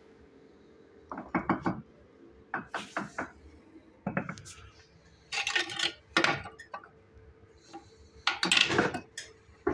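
Bricks and masonry tools being handled and set in place, with irregular clusters of hard clinks, knocks and scrapes.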